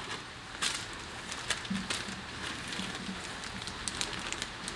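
Faint crinkling and scattered small clicks of plastic parts bags and small parts being handled.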